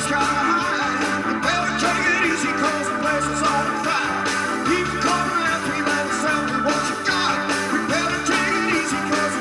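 A live rock band playing, with electric guitars and drums.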